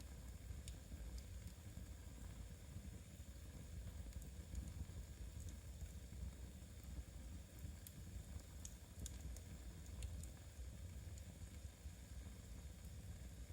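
Wood fire burning softly in a fireplace: a faint, steady low rumble with a few scattered small crackles.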